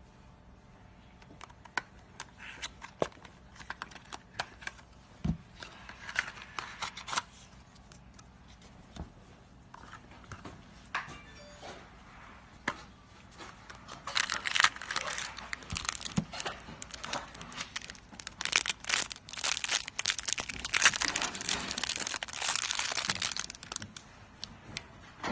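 Plastic packaging crinkling and tearing as it is opened and handled, with scattered sharp clicks; it becomes busier and louder in the second half.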